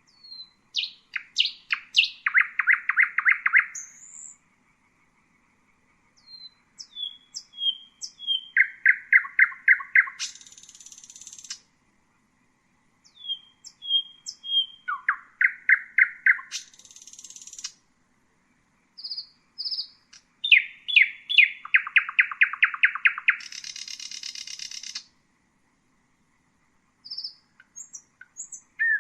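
Common nightingale singing in four separate phrases a couple of seconds apart. Each phrase opens with clear whistled notes, runs into a rapid string of repeated notes, and three of them end in a harsh, buzzing rattle.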